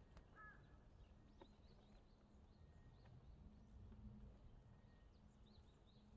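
Near silence with faint, scattered bird chirps; one louder arched bird call comes right at the start.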